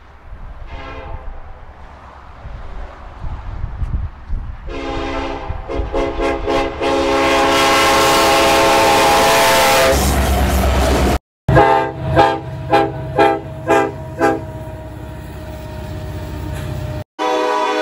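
Diesel locomotive air horns in a string of edited recordings. A brief toot, then a long blast with short breaks that builds under a rushing noise, then about six short blasts in quick succession. An abrupt cut follows, and another horn starts near the end.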